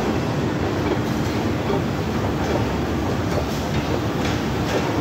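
Escalator running while being ridden: a steady mechanical rumble with a faint hum, and a few faint clicks in the second half.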